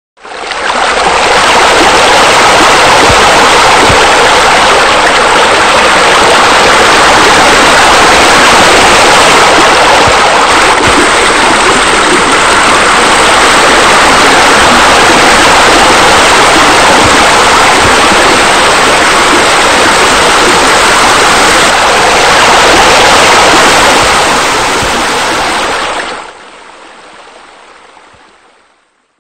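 Pool water features running: a steady, loud rush of falling water. It drops sharply a few seconds before the end, then fades out.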